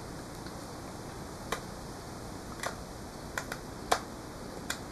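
Knife blade whittling into the end of a dry cane arrow shaft to cut a nock: about half a dozen short, sharp clicks, spaced unevenly.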